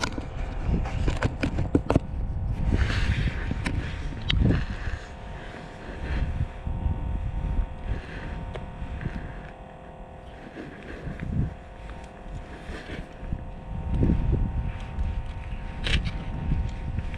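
Wind buffeting the microphone, a low rumble that swells and fades in gusts, over a faint steady hum, with a few sharp clicks now and then.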